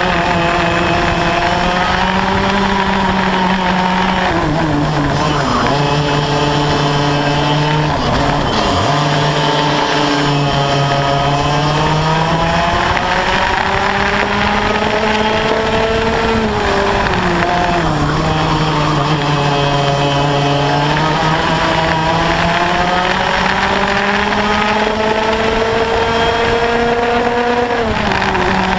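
Yamaha KT100 single-cylinder two-stroke kart engine with a Y-pipe exhaust at racing speed, heard onboard. The pitch climbs steadily along each straight and drops sharply off the throttle into the corners, about four times.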